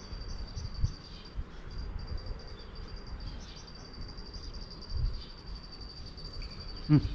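Insects trilling in a steady, high, fast-pulsing buzz, with low handling thumps and a short voice sound near the end.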